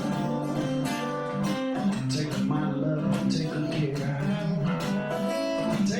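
Acoustic guitar playing an instrumental passage, a steady run of picked and strummed notes and chords.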